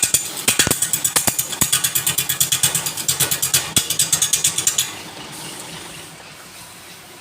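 Rapid, even mechanical clicking that stops about five seconds in, leaving a faint hiss.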